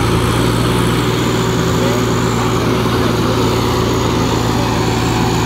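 Tractor diesel engine running steadily with a constant low hum.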